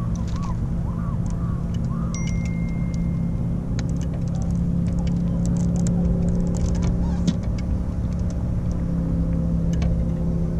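Steady low hum of a motor running on the boat, with light clicks and taps as a small northern pike and the landing net are handled.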